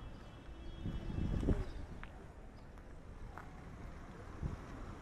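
Street ambience with a few irregular knocks and low thumps, the loudest about a second in, and faint clicks after.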